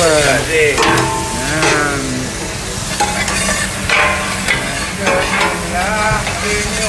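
Chopped shallots sizzling in hot vegetable oil as a wooden-handled metal spatula stirs and scrapes them across a flat stainless steel braising pan.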